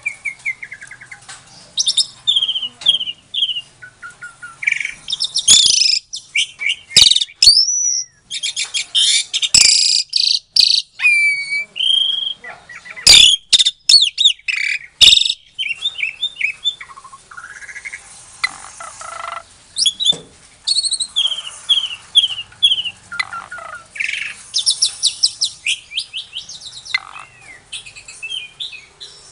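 Asian pied starling (jalak suren) singing a loud, varied song of whistles, sliding notes, quick repeated chatter and harsh rasping phrases, broken by sharp clicks.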